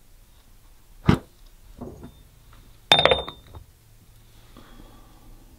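A sharp puff of breath blowing out a candle about a second in, then a sharp glass clink with a brief ringing at about three seconds as a lid goes onto a glass jar candle.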